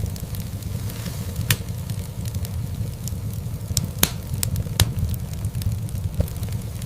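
Wood fire burning in a fireplace: a steady low rumble of flames with scattered small crackles and a few sharp pops of the logs, the strongest about four and five seconds in.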